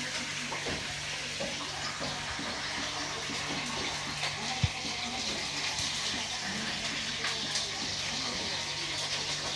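Tap water running steadily, with a low steady hum beneath it and a single sharp knock about halfway through.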